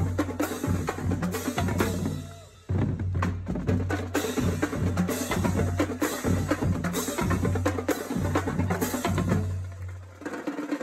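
Marching drumline of snare drums and bass drums playing a fast cadence, with dense sharp snare strokes over the low bass drum notes. It breaks off for about half a second about two seconds in and fades near the end.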